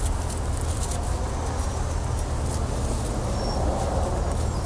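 Steady low rumble of city traffic, with scattered sharp clicks and a short high bird chirp a few seconds in.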